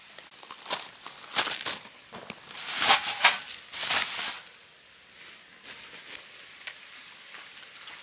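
Plastic wrapping crinkling and rustling in several bursts as it is pulled off and crumpled, loudest about three seconds in. Faint crunching steps on gravel follow near the end.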